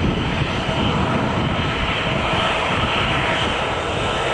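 An Airbus A320's twin jet engines at takeoff power during the takeoff roll: a steady, loud rumble with a faint steady whine in it.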